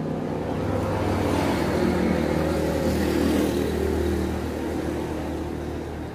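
A motor vehicle engine running, growing louder towards the middle and then fading away near the end.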